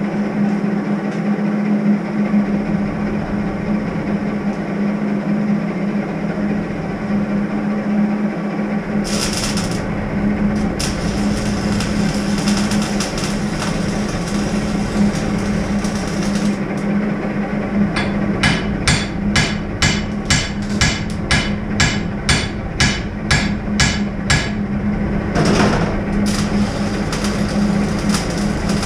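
A steady mechanical hum runs throughout. For about seven seconds past the middle, a run of evenly spaced sharp knocks comes, about two a second, like a hammer striking metal.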